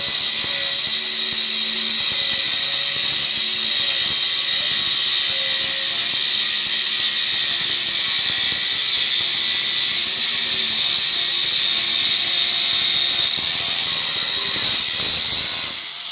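Handheld electric stone cutter running steadily with a high whine as its blade cuts through a granite slab. The sound dips briefly at the very end.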